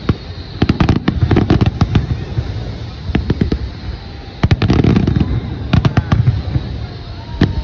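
Aerial fireworks display: many sharp bangs and crackles in quick clusters, over deep booms from the shell bursts.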